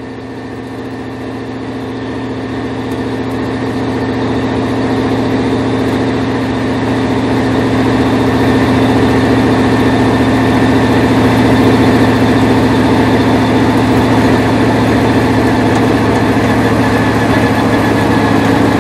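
Indy Lights single-seater's engine running steadily at light throttle while the car cruises, heard from the cockpit. The engine note holds a steady pitch and gradually gets louder over the first several seconds, then stays level.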